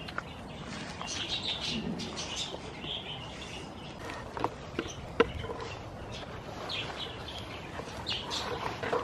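Small birds chirping in short clusters of high calls, with a few sharp clicks and snaps scattered through, the loudest about halfway.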